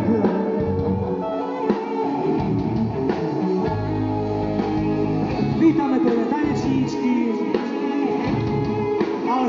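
Live music: a singer with guitar accompaniment, picked up by a compact camera's built-in microphone.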